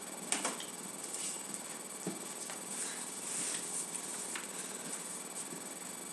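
Quiet room tone with a steady hiss from the recording, broken by a few faint, scattered taps and scuffs of footsteps on a hard floor.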